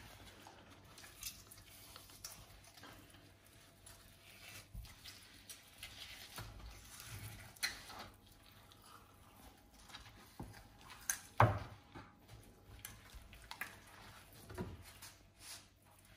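Quiet handling noises of a partly frozen fish being skinned by hand on a cutting board, the skin gripped in a paper towel: scattered light taps and rustles, with a sharper knock about eleven seconds in.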